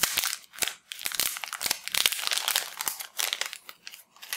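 Packaging wrapper crinkling and tearing as it is ripped by hand off a coiled in-ear headset, in a quick irregular run of crackles that thins near the end.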